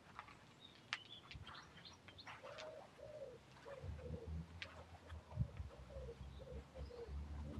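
A pigeon cooing in a run of short, evenly repeated coos, with small birds chirping higher and faster in the first few seconds. A low rumble comes in about halfway.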